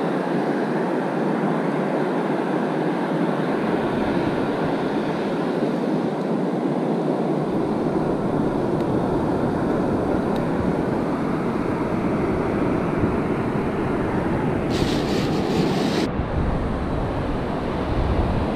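Strong wind buffeting the microphone over the steady wash of surf breaking on a sea beach. Near the end the wind rumble gets deeper.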